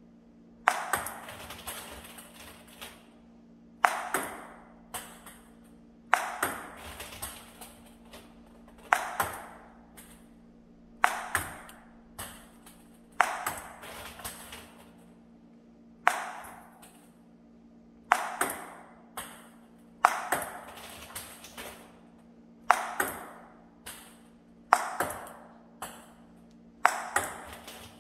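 Table tennis forehand drill: a ping-pong ball struck by the paddle and bouncing on the table, with a sharp crack about every two seconds, each fading quickly, and lighter bounce clicks in between. A steady low hum runs underneath.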